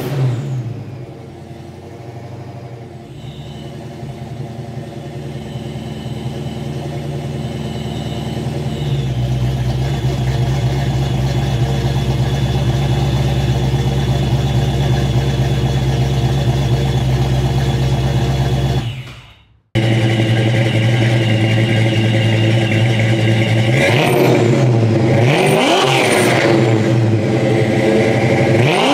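Fox-body Ford Mustang exhaust through Jones Full Boar 3-inch offset mufflers, the engine idling steadily after a rev falls away at the start, growing louder over the first several seconds. It cuts out briefly about two-thirds through, then a rev rises and falls near the end.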